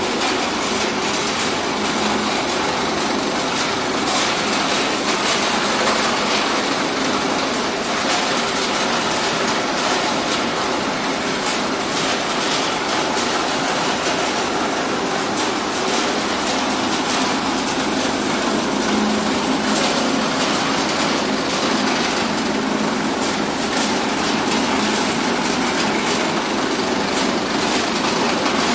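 Betel (areca) nut cutting plant running: belt-driven cutting machines, vibrating double-deck grading screens and bucket elevators make a steady, loud mechanical din with a dense clatter of rattles and clicks.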